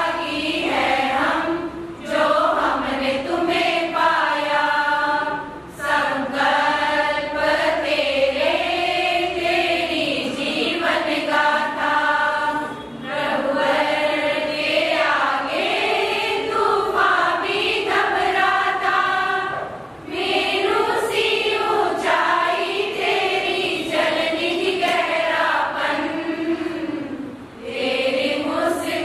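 Women's choir singing a Hindi devotional song of tribute (a geetika) together, in long phrases with short pauses for breath between them.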